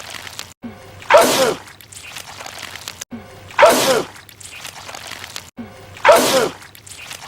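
A man's sneeze looped, the same sneeze heard three times about two and a half seconds apart. Each is loud and sudden, with a faint low hum between them.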